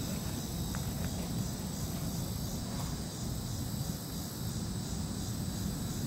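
Steady high-pitched insect chorus over a constant low rumble, with two faint ticks about a second in.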